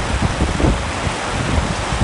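Heavy rain falling steadily, with a few short low thumps within the first second and again near the middle.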